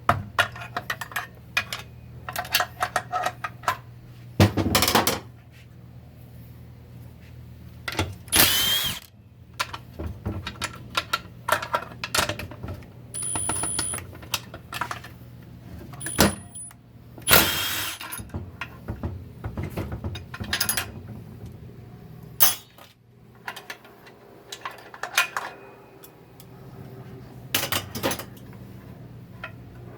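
Metal transmission parts and hand tools clinking and clanking irregularly as a 4L60-E automatic transmission is taken apart, with a few louder clanks, over a steady low hum.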